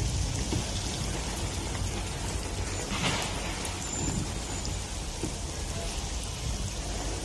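Steady hiss of rain and tyres on a wet road, heard from inside a moving car over the low rumble of the car, with a brief swell about three seconds in.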